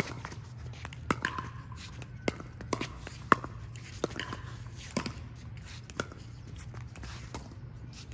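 Pickleball rally: paddles hitting a hard plastic pickleball back and forth, sharp pops roughly a second apart, about seven in all, stopping about six seconds in.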